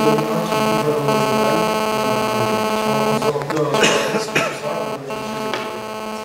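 Steady electrical buzz with many overtones, the mains hum of a sound system. Music fades out in the first second, and a short burst of noise comes about four seconds in.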